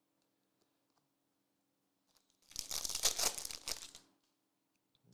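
Foil wrapper of a trading-card pack crinkling and tearing in one short burst about two and a half seconds in, lasting about a second and a half.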